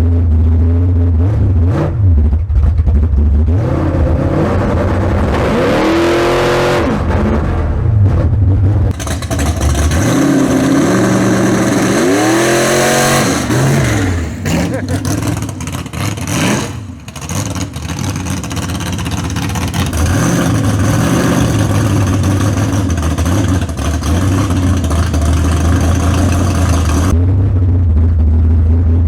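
Drag-race car engine running hard, its pitch climbing and dropping back in several sweeps, then holding a steady drone.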